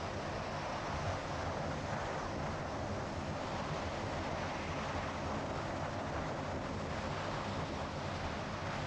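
Steady road and wind noise of a car driving along at speed.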